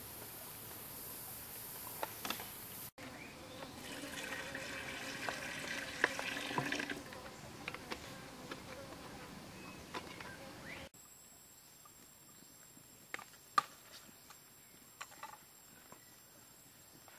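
Outdoor ambience of buzzing insects, which changes abruptly twice and is busiest in the middle stretch. In the last few seconds a few small clicks and rustles come from hands handling food on palm leaves.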